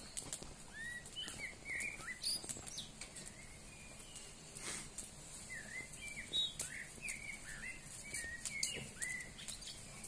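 Nightingale singing: a run of short, varied whistled notes that swoop up and down, with scattered sharp clicks between them.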